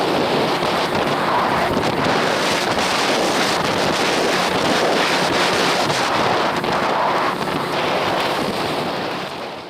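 Steady wind noise buffeting the microphone, fading out near the end.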